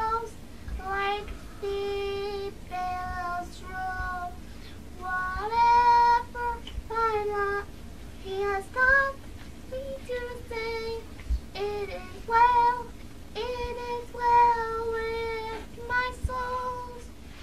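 A high solo singing voice carrying a slow melody of long held notes in short phrases, with little accompaniment under it; the last note fades out near the end.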